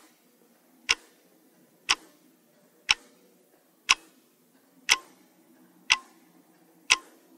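Quiz countdown-timer sound effect: a short, sharp clock-like tick once a second, about eight ticks in all.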